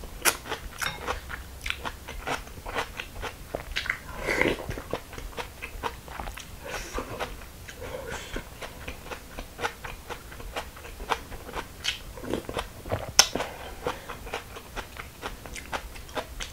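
Close-up chewing of a mouthful of raw young radish greens (yeolmu) bibimbap: crisp crunching and wet mouth clicks, with a few sharper clicks now and then.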